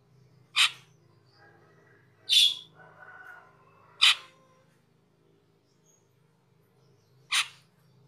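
Asian glossy starling (cucak keling) giving four short, loud calls, the first three under two seconds apart and the last after a longer pause, with a softer chatter between the second and third.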